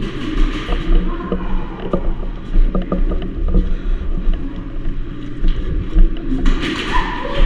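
Steady low rumble with repeated dull thumps, a few sharp clicks around the middle, and a hissing rush near the end.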